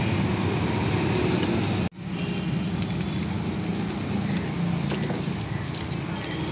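Steady low background rumble that cuts out for an instant about two seconds in, then carries on, with faint light clicks later.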